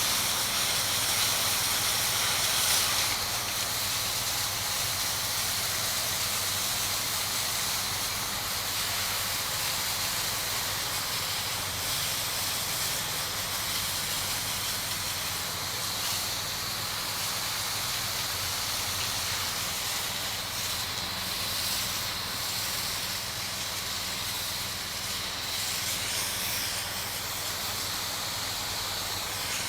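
Pressure washer spraying water: a steady, unbroken hiss of the high-pressure spray over a low steady hum.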